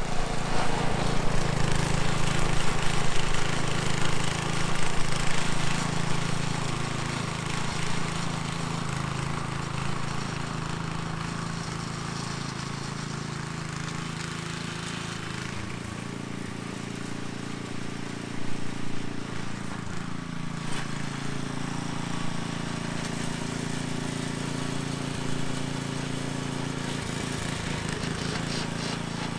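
An engine running steadily, its note shifting about two-thirds of the way through.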